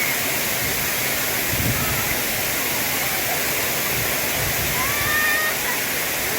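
Artificial waterfall: a steady, continuous rush of falling water.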